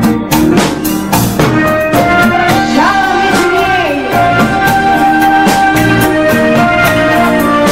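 Live dance-band music: an instrumental passage with a drum kit keeping a steady beat under held melody notes, with one note sliding upward about three seconds in.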